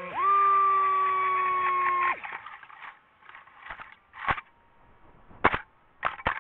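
DJI FPV drone's motors whining on a steady pitch after a quick rise, cutting off suddenly about two seconds in; then scattered sharp knocks and scrapes as the drone falls through branches and brush after its crash.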